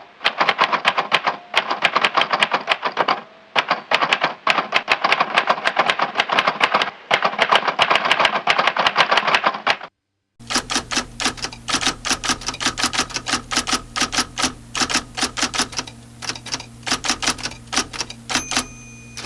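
Rapid typing on a keyboard: dense runs of key clicks with brief pauses. About ten seconds in it cuts, after a moment's silence, to a different typing recording with more evenly paced keystrokes over a steady low hum, and a short ringing tone near the end.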